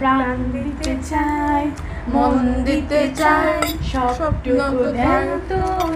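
Women singing a song together, with long held notes.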